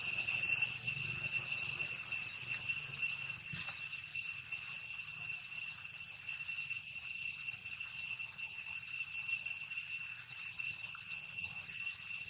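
A steady, high-pitched insect drone: several unchanging shrill tones that hold level throughout.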